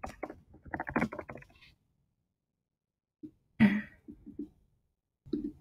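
A person's voice: brief low mumbling, then a short throaty sound a little past the middle, like a cough or throat-clearing, with dead silence in between.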